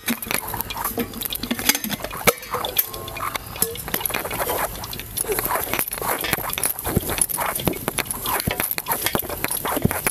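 Oiled hands kneading and pressing a stiff flour dough in a brass plate: a busy, irregular run of soft slaps, pats and small clicks.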